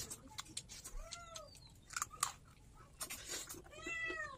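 A cat meowing twice, short calls that rise and fall in pitch, one about a second in and a longer one near the end. Between them are the small wet clicks and smacks of someone chewing food eaten by hand.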